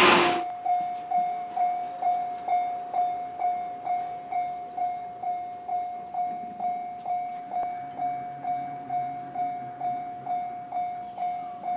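Electronic warning bell of a Japanese railway level crossing, a single clear ding repeating evenly a little over twice a second and slowly growing fainter. The rumble of a passing train cuts off right at the start.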